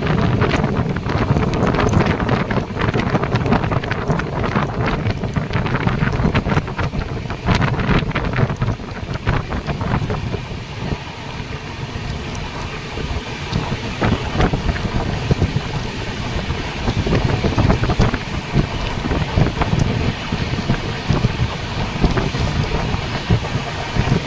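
An LHB passenger coach of the North East Express running at speed, heard from on board: a steady rumble of wheels on rail with frequent small clicks and knocks, and wind rushing across the microphone.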